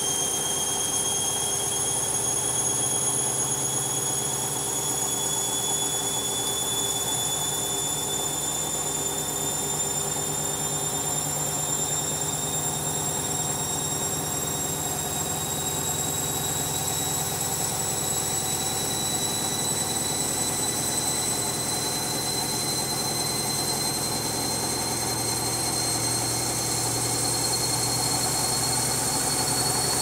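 Candy front-loading washing machine in its spin, the motor giving a steady high whine that climbs slowly in pitch as the drum speeds up, over a low running hum.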